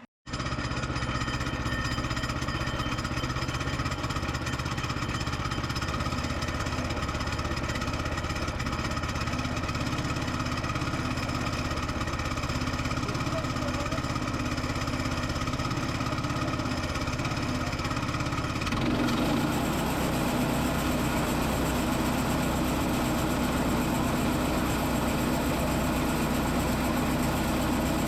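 Engine of a piece of heavy equipment running steadily, with a shift in its sound about nineteen seconds in.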